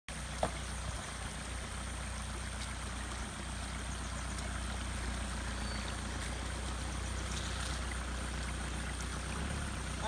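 Steady rush of flowing stream water, an even noise, with a low steady hum underneath and a single sharp click about half a second in.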